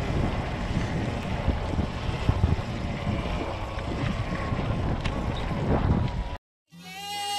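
Wind buffeting the microphone over the rumble of an electric dirt bike ridden along a leaf-covered dirt trail. A little past six seconds in it cuts off suddenly, and music starts.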